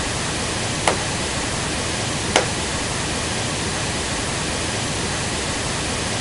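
Steady pink noise test signal from the measurement loudspeaker, with two sharp hand claps, about a second in and about two and a half seconds in.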